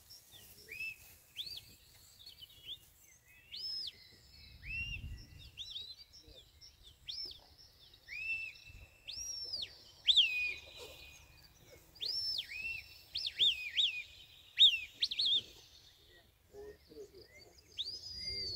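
Handler's shepherd's whistle commands to a working sheepdog: a series of sharp whistles, some rising and held then falling away, others short quick blips in clusters.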